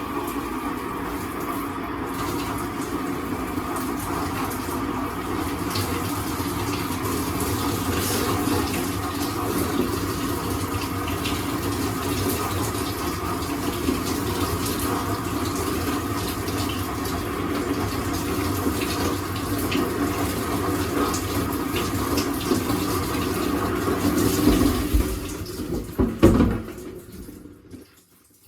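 Shower running steadily, water spraying and splashing, with a couple of louder bumps just before the water is shut off and the sound drops away near the end.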